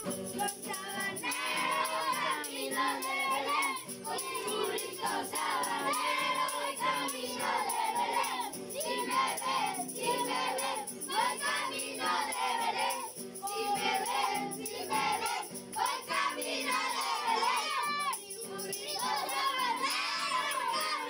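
A group of children singing a Christmas carol (villancico) together as a crowd.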